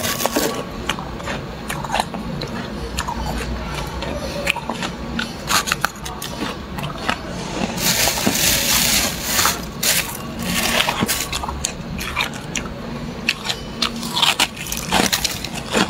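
Thick freezer frost crunching and crackling as it is broken off and handled, in irregular bursts of sharp crackles, with a longer dense crunch about eight seconds in.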